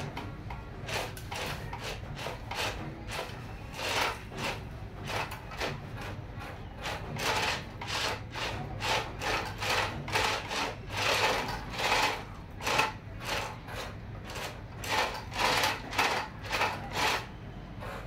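The small electric motor and plastic gearing of a Huina radio-controlled toy dump truck whirring in short bursts, one after another, over a steady low hum.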